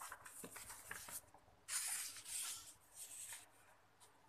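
Faint rustling and sliding of paper sheets handled on a table, a few soft swishes about halfway through with small taps around them.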